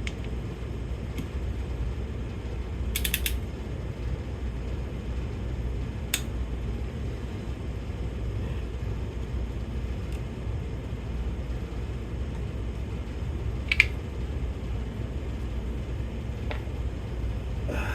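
Torque wrench ratcheting and clicking on bolts being tightened in a crisscross sequence: a quick run of ratchet clicks about three seconds in, then single sharp clicks spread through the rest, the loudest one late on, over a steady low hum.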